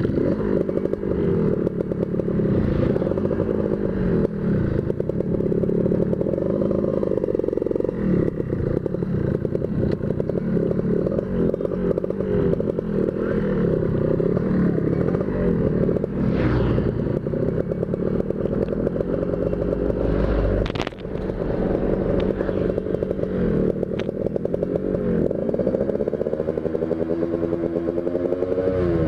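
Tuned motorcycle engine being ridden hard, its note climbing and falling again and again as it revs through the gears, with wind rushing past a helmet-mounted microphone. The engine note drops away briefly about two-thirds of the way through, then picks up again.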